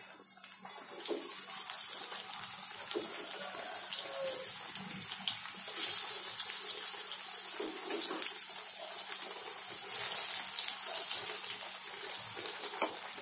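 Tempe slices deep-frying in hot oil in a wok: a steady sizzle with crackling pops, swelling about a second in as slices go into the oil.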